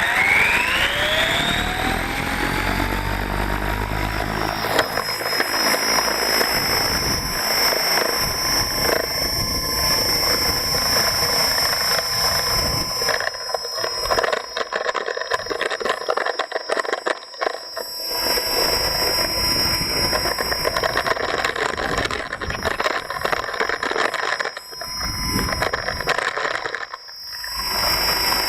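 Ikarus ECO 7 radio-controlled helicopter's electric motor and rotor spooling up, the whine rising in pitch over the first second. It then holds a steady high whine over the rushing of the rotor blades, heard up close from a camera hung on the helicopter. The sound dips briefly a few times in the second half.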